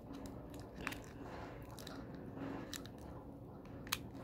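Faint rustling and a few sharp little clicks of small plastic toy packaging being handled and opened, over the steady hum of a room fan.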